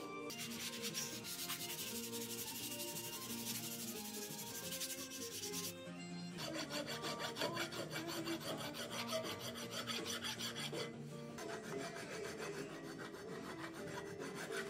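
Hand scrubbing of a rusty cast-iron vice part with an abrasive, in quick back-and-forth strokes. The strokes pause briefly about six seconds in, then start again.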